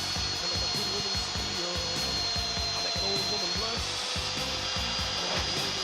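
Electric drill running steadily with a high motor whine, drilling out a broken bolt from the motorcycle frame; the whine steps up slightly about two-thirds of the way through. Rock music with a steady beat plays underneath.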